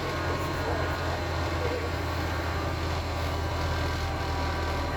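Wright StreetDeck double-decker bus running, its Mercedes-Benz OM934 four-cylinder diesel giving a steady low drone.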